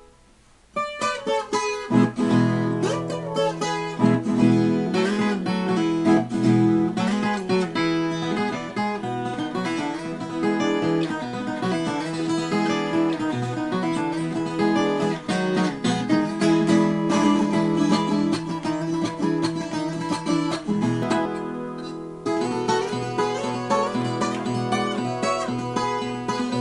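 Background music played on acoustic guitar, plucked and strummed, starting about a second in after a short gap.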